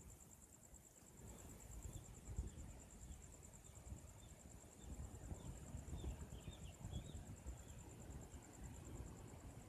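Faint, steady high insect trill, pulsing rapidly without a break, with a few faint short high chirps around the middle and a low rumble underneath.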